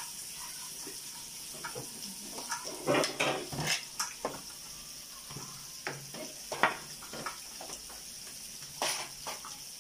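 Pork belly sizzling on a Korean barbecue grill pan, a steady hiss, with eating utensils clicking and scraping against the pan and plates; a flurry of clatter about three seconds in and sharp single clinks later on.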